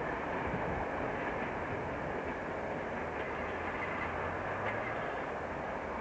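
British Rail Class 50 'Hoover' diesel locomotive, with its English Electric sixteen-cylinder engine, working under power as it hauls its passenger train away, with a steady low engine drone and the rumble of the train.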